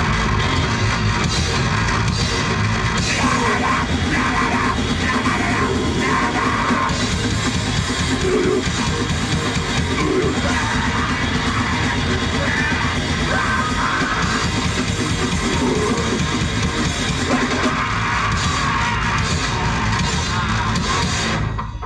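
Grindcore band playing a song live: fast drums, dense distorted guitar and bass, and yelled vocals, all at full loudness and stopping abruptly near the end.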